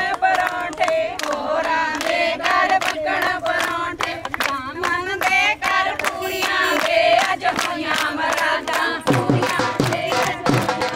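A group of women singing together in unison, keeping time with steady rhythmic hand clapping. A low drum beat joins in near the end.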